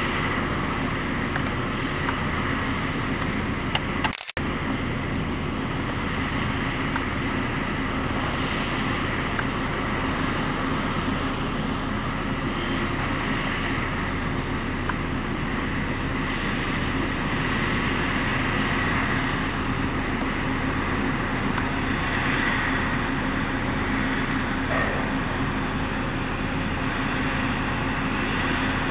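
Natural-gas drilling rig's machinery running, a steady drone with a low hum and a higher whine that hold without change.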